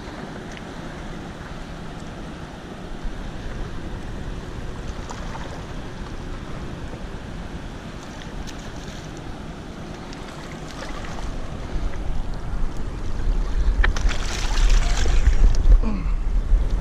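Wind buffeting the microphone over the steady rush of dam tailwater. The low wind rumble grows louder about twelve seconds in, and a short burst of noise comes near the end.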